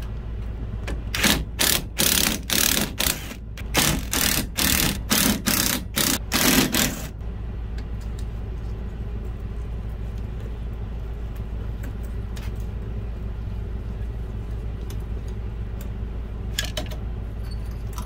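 A cordless power drill-driver run in about a dozen short trigger bursts, stopping about seven seconds in, over a steady low hum. A few faint clicks come near the end.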